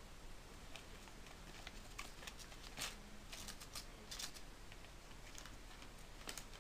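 Faint paper rustling and crinkling as a small dog tears and chews a sheet of paper: a scatter of short crackles, the loudest about three seconds in.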